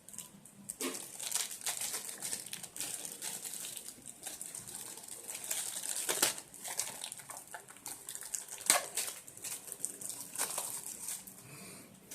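Packaging crinkling and rustling as a charger is handled and unwrapped, with irregular crackles and a few sharper clicks.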